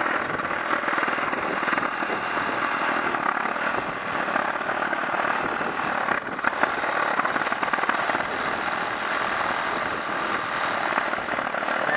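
Cordless reciprocating saw cutting through a log of kiawe, a very hard wood: a steady buzzing rasp of the blade's fast strokes, easing briefly about six seconds in.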